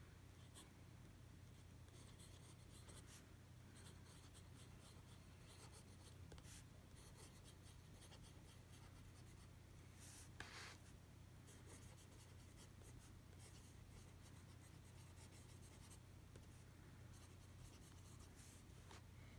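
Broad-nib TWSBI Go fountain pen faintly scratching across journal paper while writing a line of handwriting, with a steady low hum underneath. One stroke about ten seconds in is a little louder.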